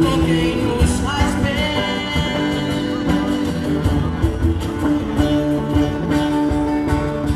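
Live band music from acoustic guitars, electric guitar and bass guitar, with a cajón keeping the beat, playing continuously.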